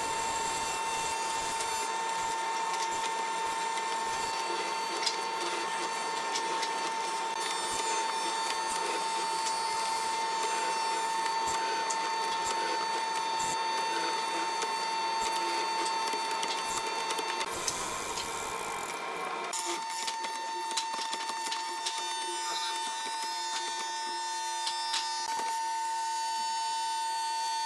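Hollow-chisel mortiser running with a steady whine, its square chisel and auger boring into hardwood with scattered clicks and knocks. The whine breaks off about two-thirds through and comes back a couple of seconds later.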